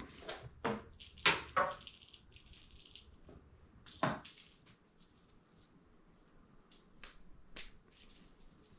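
A few scattered soft taps, knocks and rustles from cats playing with toy mice on a carpeted cat tree. The loudest is a single thump about four seconds in.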